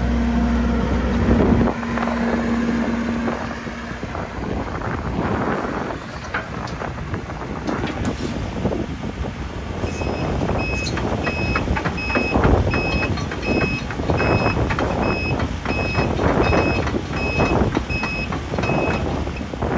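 2017 Case CX160D excavator's 112 hp Tier 4 diesel running, with a steady hum for the first few seconds and irregular knocking. About halfway through, its travel alarm starts beeping about one and a half times a second, a sign the tracks are engaged.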